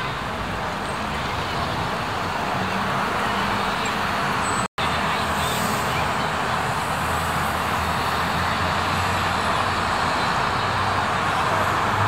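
Steady city road traffic: cars and buses driving past with engines running. The sound drops out completely for an instant about a third of the way in.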